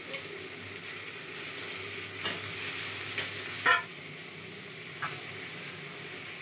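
Chopped tomatoes and onions sizzling in hot oil in a steel kadai, a steady frying hiss. A few short metal clinks of the spatula and utensils against the pan, the loudest just past halfway.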